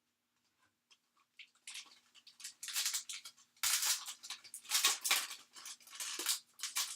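Trading cards being slid and shuffled by hand: a run of dry rustling, scraping strokes that starts a couple of seconds in and comes in quick bursts.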